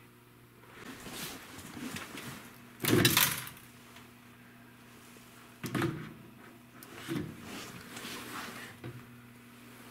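A run of knocks and scrapes, like doors or cupboards being moved. The loudest clatter is about three seconds in, with more sharp knocks a few seconds later. A faint steady hum lies underneath.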